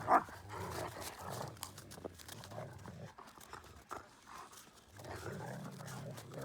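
Dog vocalizing: a short, high yelp right at the start, then low grumbling noises in two stretches, with a quieter gap in the middle.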